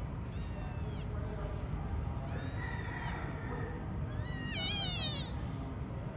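Kitten meowing three times, high-pitched cries that fall in pitch. The third, about four seconds in, is the longest and loudest and wavers.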